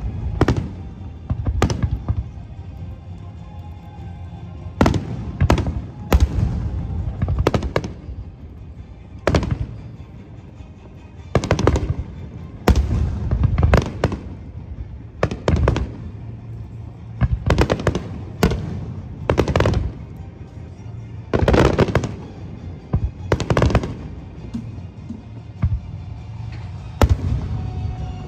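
Aerial firework shells bursting in a long, irregular series of loud bangs, roughly one every second or two with some in quick pairs, over music played for the show.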